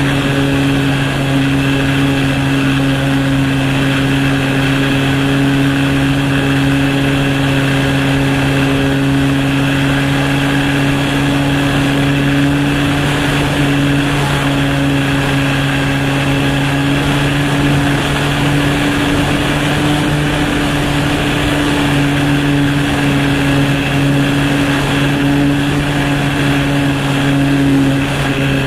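Small airplane's engine running steadily in flight at an almost constant pitch, heard from a camera carried on the aircraft, with wind rushing over the microphone.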